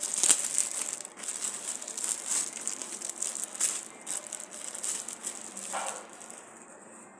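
A clothing package being torn open and handled, its wrapping rustling and crinkling in quick irregular crackles that die away near the end.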